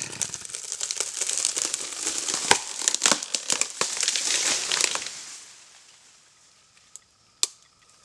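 A leaning green northern red oak splitting up the trunk from the stump (a barber chair) as it falls: a run of crackling, tearing wood with several sharp cracks that dies away after about five seconds, then one more sharp crack near the end.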